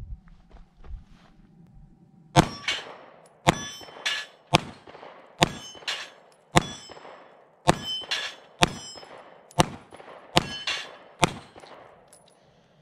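Smith & Wesson CSX 9mm micro-compact pistol fired about a dozen times at a steady pace of roughly one shot a second, starting a couple of seconds in. Hits on the steel plate targets ring with a brief metallic clang.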